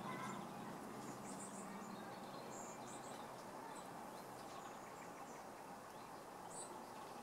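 Faint outdoor ambience: a steady hiss with scattered short, high-pitched chirps and a faint low hum that fades out about two seconds in.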